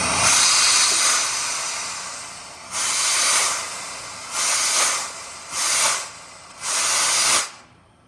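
Air-powered shop press hissing as its ram presses a new bearing and seal down onto an axle trunnion: one long hiss, then four shorter bursts about a second apart, stopping abruptly near the end.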